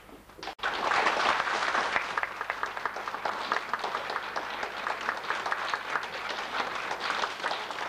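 Audience applauding, breaking out suddenly about half a second in, loudest for the first second or two, then going on steadily.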